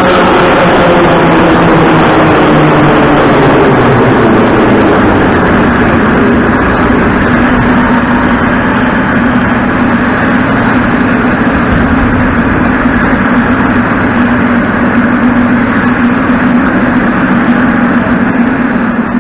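Moscow Metro train running loudly at a station platform, its whine falling in pitch over the first few seconds, then settling into a steady hum and rumble with scattered faint clicks.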